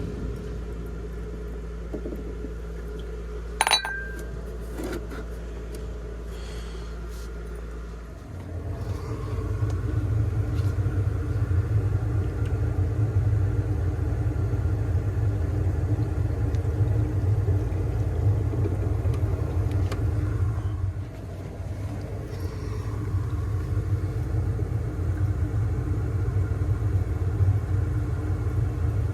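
Furnace condensate pump, filled with poured water to test it, kicks on about eight seconds in and runs with a low rumbling hum, which shows the pump works. Before it starts there is a steady lower hum and a single sharp knock.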